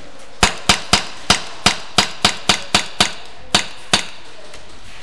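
An airsoft pistol fired about a dozen times in quick, uneven succession, each shot a sharp crack.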